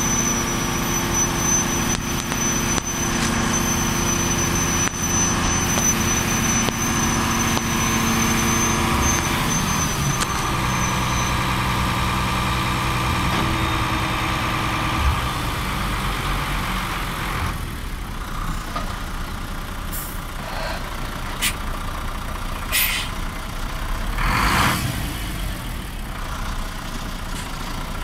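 Hooklift truck's diesel engine running steadily at raised revs while the hook arm lowers a waste container, with a thin high whine in the first third; the engine drops to a quieter idle a little past halfway. Near the end come a few sharp clicks and a short hiss of air.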